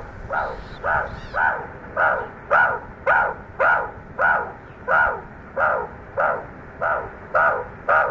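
An animal calling over and over in a steady rhythm, about two short calls a second.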